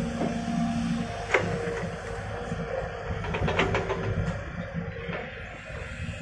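SANY hydraulic excavator running, its engine and hydraulics giving a steady drone with a held whine, as it loads mud into a dump truck and swings its boom back. A sharp knock comes about a second in and a few more around three to four seconds in.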